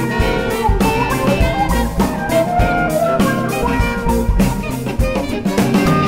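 Jazz septet playing, with drum kit and guitar over a dense band texture.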